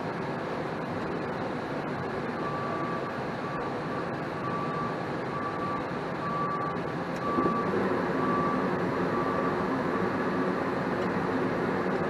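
Goodman 80% single-stage gas furnace running with a steady hum. A soft electronic beep repeats about one and a half times a second from about two seconds in until near the end. About seven seconds in the running noise gets louder, with a lower hum joining.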